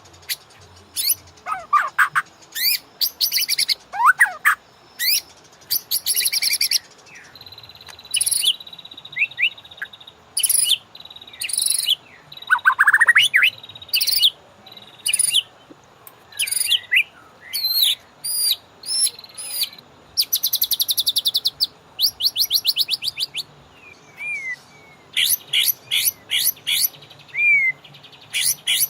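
White-rumped shama (murai batu) singing: a long run of loud, varied whistled phrases with rising and falling notes, broken by fast rattling trills.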